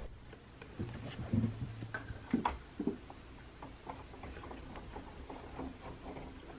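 Quiet handling noise: scattered small clicks, taps and rustles as a phone and the camera are handled, with a few louder soft knocks in the first three seconds.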